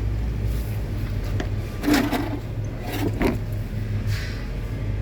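Hand tools and metal parts being handled, with short scrapes and clatters about two seconds in and again about three seconds in, over a steady low hum.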